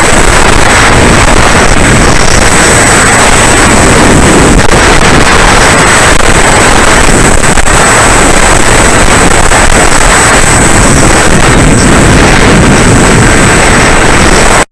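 Bixler 3 RC plane in flight, heard through its onboard microphone: a loud, even rush of wind over the microphone mixed with the electric motor's drone, with a thin steady high whine above it.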